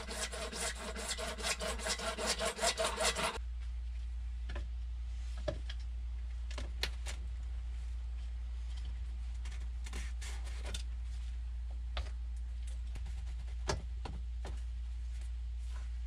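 Hand saw cutting through PVC drain pipe with rapid back-and-forth strokes, stopping abruptly about three seconds in. Afterwards, scattered light knocks and clicks of plastic pipe pieces being handled and fitted.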